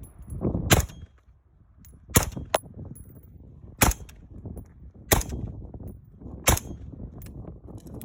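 Five suppressed 5.56 rifle shots from a 10.3-inch barrel with an AAC Mini-4 suppressor, fired one at a time about a second and a half apart.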